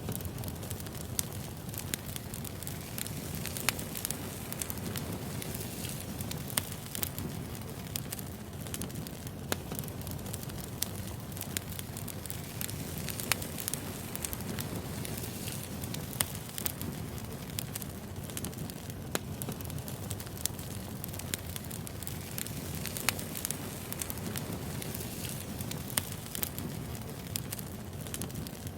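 Wood fire crackling: a steady low hiss of burning logs with frequent sharp, irregular pops.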